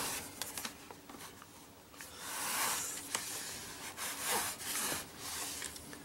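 HP 14 laptop's plastic casing being pried and shifted with a plastic pry tool: rubbing and scraping in several swells of about a second, the loudest a couple of seconds in, with a few small clicks.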